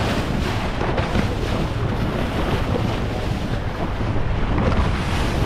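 Wind buffeting the microphone over the steady rush of water along the hull of a fast-running boat, with a low rumble underneath.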